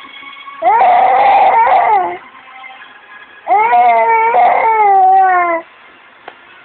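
A young child's long, drawn-out whining cries, two of them each lasting about two seconds, the pitch sliding down at the end of each.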